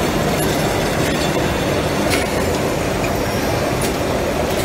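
Packaging-line machinery for boxed welding electrodes running, with a powered roller conveyor carrying the boxes: a steady loud mechanical rumble with a few sharp clicks.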